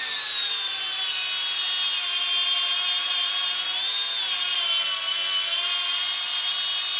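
Worx cordless angle grinder grinding steel with an abrasive disc under continuous load: a steady high motor whine over the rasp of the disc on metal. The pitch sags briefly about four seconds in, then recovers.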